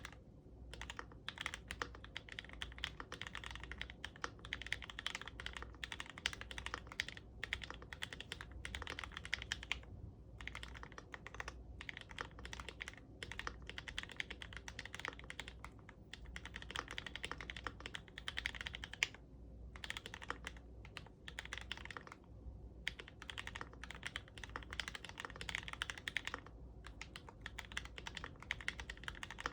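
Steady fast typing on a GMMK Pro mechanical keyboard fitted with fully lubed and filmed 43 Studio Popu 65 g switches and ABS keycaps: a dense run of keystrokes broken by a few brief pauses.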